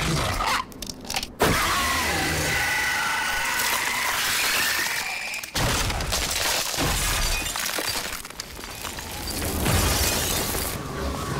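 A sudden loud shattering crash about a second and a half in, like ice or glass bursting apart: the TV sound effect of a White Walker shattering. It is followed by a man shouting excitedly.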